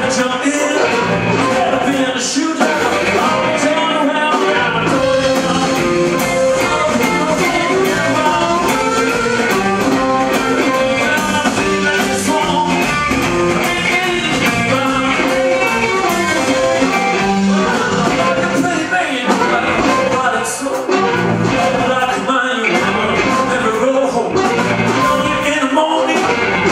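Live blues-rock band playing: electric guitar, bass guitar, Ludwig drum kit and blues harmonica, with a man singing.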